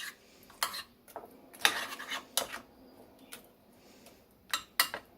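A utensil stirring chopped onion into canned chili in a casserole dish, with a scattering of short clinks and scrapes against the dish.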